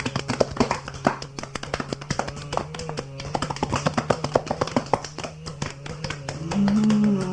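Music made of many quick, irregular taps and clicks over a steady low drone, with a louder held note coming in near the end.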